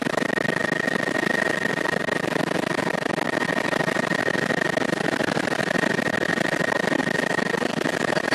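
Helicopter in flight heard from on board: a steady rush of engine and rotor noise with a constant high-pitched whine and a lower steady hum over it.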